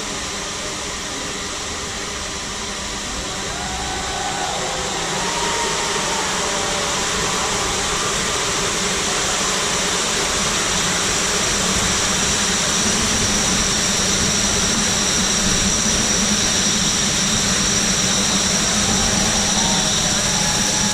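A swarm of light-show drones' propellers humming together as they come in to land, a steady mass of buzzing with a high whine on top, growing louder over the first several seconds.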